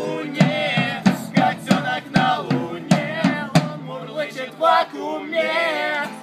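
Acoustic band music: acoustic guitars strummed, a drum struck on the beat, and male voices singing together. The drum hits stop about three and a half seconds in while the voices carry on, held and wavering, until the music cuts off near the end.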